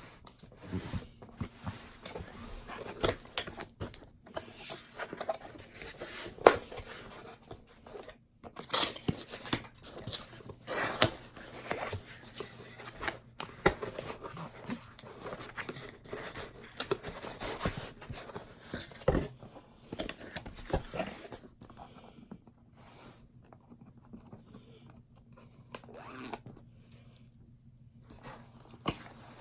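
Laptop packaging being opened and handled: irregular tearing, rustling and clicks of plastic and cardboard, busy at first and sparser near the end, over a faint steady hum.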